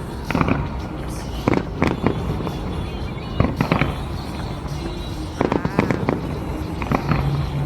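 Fireworks shells bursting in a run of sharp, irregular bangs, several coming in quick clusters, over background music.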